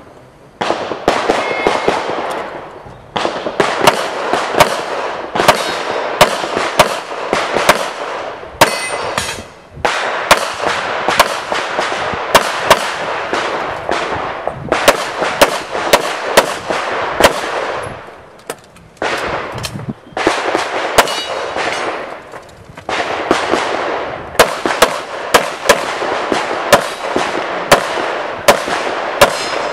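Handgun shots fired in quick strings during a practical-shooting stage run, with several short pauses between strings, over a steady background wash of sound.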